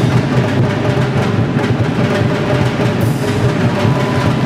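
Music driven by fast, dense drumming.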